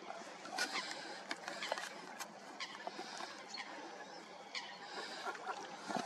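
Waterbirds calling on a lake: many short chirps and squeaks scattered irregularly over a faint steady background.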